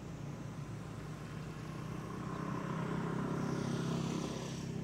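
A motor vehicle's engine running, growing louder as it passes about three to four seconds in, then fading.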